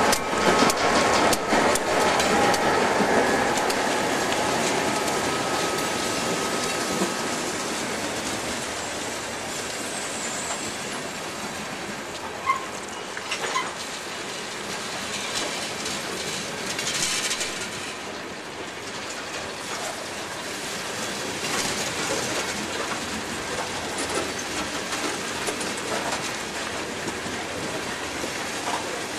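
Freight train of tank cars and covered hoppers rolling past, steel wheels clicking over the rail joints. It is louder for the first few seconds, as the trailing GP38-2 diesel locomotive moves off, then settles to a steady rolling noise.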